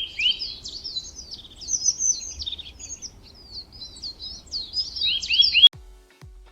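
Small birds calling in a rapid series of short, high chirps and twitters, ending abruptly near the end; then music with a steady low beat about twice a second begins.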